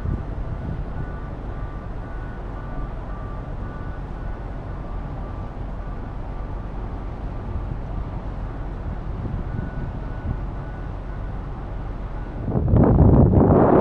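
Steady low rumble of a car ferry's engines and hull heard on board. About twelve seconds in, loud wind buffeting on the microphone suddenly covers it.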